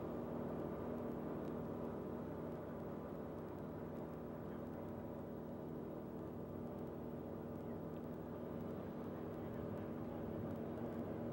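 Steady mechanical drone of a running engine or machine, holding several constant tones without change.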